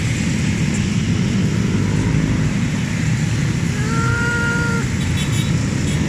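Steady drone of many motorcycle engines passing in a long column, with a horn sounding for about a second about four seconds in.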